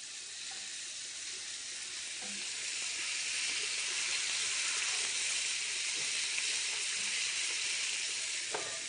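Food sizzling in hot fat in a frying pan on the stove: a steady hiss that grows louder over the first few seconds and then holds. A few light clicks come near the end.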